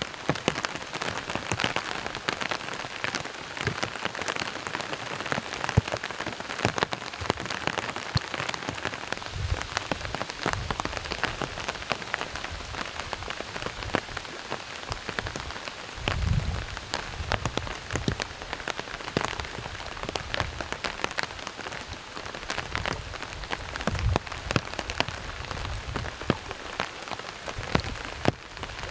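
Heavy rain falling steadily, a dense patter of drops, with a few low rumbles now and then, the strongest about sixteen seconds in.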